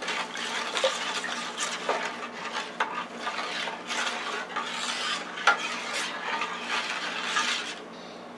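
A utensil stirring raw rice into broth and water in a metal baking pan, scraping and clinking against the pan; the stirring stops about eight seconds in.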